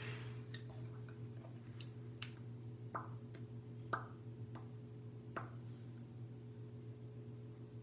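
Soft, irregular taps and clicks of fingernails on a plastic lip gloss tube, about eight in all, some with a short ring, over a faint steady hum.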